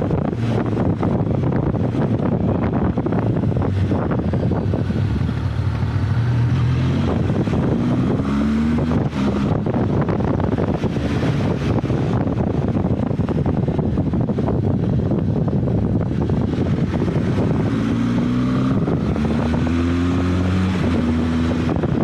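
Benelli TRK 502 X's parallel-twin engine running under way, with wind buffeting the microphone. The engine pitch climbs in a few short steps about seven seconds in and again near the end, as it accelerates up through the gears.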